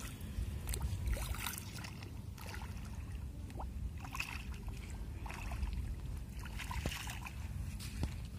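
Footsteps in flip-flops splashing through shallow water on a sandy tidal flat, a short slosh every second or so, over a steady low rumble.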